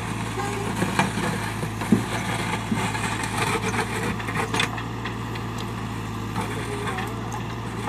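JCB backhoe loader's diesel engine running at a steady hum, with a few sharp knocks over it.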